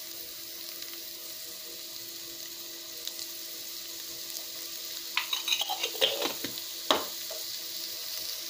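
Chopped onion sizzling in hot oil in a non-stick frying pan, a steady hiss. About five seconds in come a few sharp clicks and taps as ginger paste is added to the pan.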